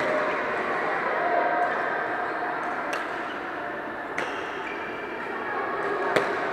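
Badminton racket strings striking a shuttlecock: three sharp pings, about a second and two seconds apart, the last the loudest. Underneath runs the steady hubbub of a busy sports hall with distant voices.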